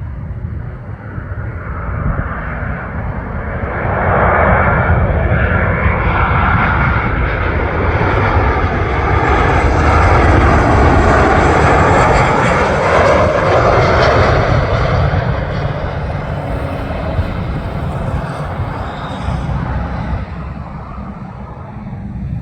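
Southwest Boeing 737-700 jet on landing approach passing low overhead, its engine noise swelling to a peak about ten seconds in and then fading away. Wind rumbles on the microphone throughout.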